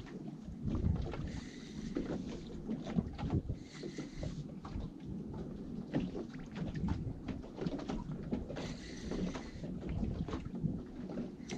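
Water slapping against the hull of a small fishing boat, with wind buffeting the microphone and irregular knocks. Three short spells of a higher hiss match a spinning reel being wound in as a fish is played.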